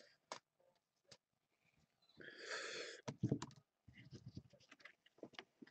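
Trading cards and their packaging handled on a tabletop: a short sliding rustle a little over two seconds in, then a few knocks and scattered light clicks.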